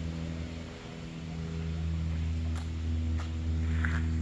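A motor or engine running steadily, easing slightly about a second in and then steadier, with a few faint clicks near the end.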